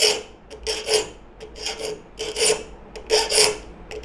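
A triangular saw file rasping across the steel teeth of a woodworking hand saw to sharpen them, in short strokes about two a second, often in close pairs, each with a brief ringing note.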